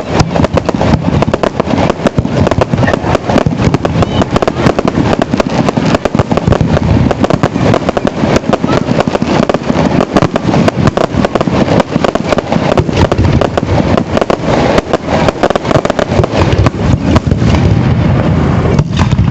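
Fireworks display going off in a rapid, continuous barrage: many bangs and crackles in quick succession with no pause.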